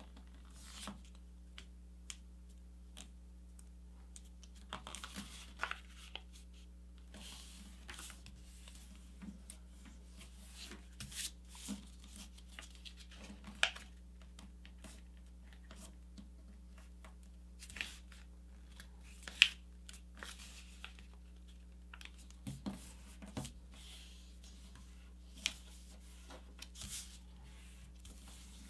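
A sheet of paper being folded and creased by hand: soft, irregular rustles and sliding strokes, broken by a few sharper crisp clicks as the creases are pressed down.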